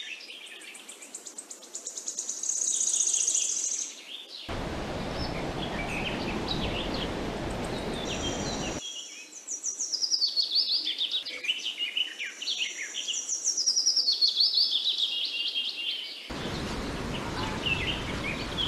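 Birds chirping and calling rapidly, with a brief high insect buzz. Twice a steady low rushing noise comes in and cuts off abruptly, about four seconds in and again near the end.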